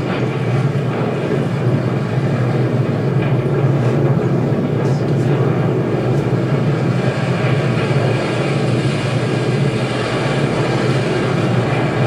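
Steady rush of wind and sea with a low rumble, recorded aboard a sailing yacht heeling in rough water.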